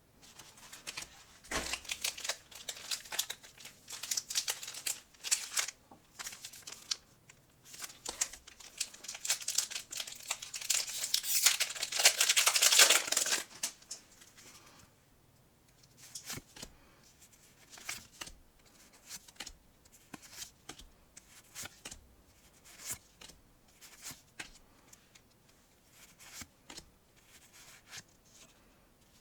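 Pokémon card packaging being crinkled and torn open by hand, a dense crackling of plastic and foil wrapper that peaks about twelve seconds in. After that come lighter, scattered rustles and clicks.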